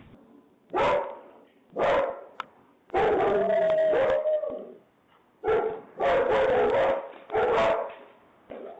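A dog barking in six loud bursts, two of them drawn out over a second or more.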